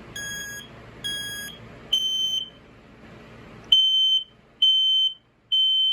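FireX 120-1072C ionization smoke alarm's horn sounding on test in the three-beep pattern: three beeps, a pause, then three more. The first beeps are weaker and a touch higher in pitch before the horn comes up to full loudness, with the horn being finicky.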